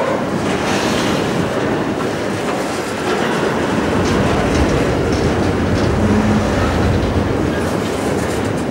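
Freight train wagons, container flats and louvre vans, rolling past on steel wheels: a steady, loud rolling noise of wheels on rail with scattered clicks.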